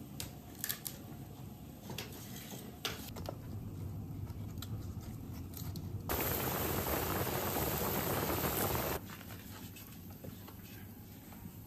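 Kitchen cooking sounds: a few clicks and knocks of utensils over a low rumble, then a loud steady hiss that starts suddenly about six seconds in and cuts off just as suddenly some three seconds later.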